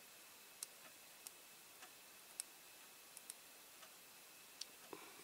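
Near silence with faint, irregularly spaced small clicks and ticks of fingers and fingernails handling a paper sticker as it is folded and pressed into place on a small model.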